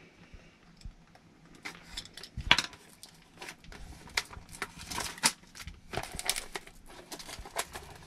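Small cardboard boxes and packaging being handled: scattered light taps, clicks and rustles, with one louder knock about two and a half seconds in.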